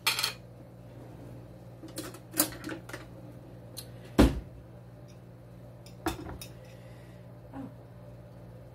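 Scattered clicks and knocks of a metal scoop against a glass olive jar and of kitchen things set on the counter, about eight in all, the loudest about four seconds in. A low steady hum runs underneath.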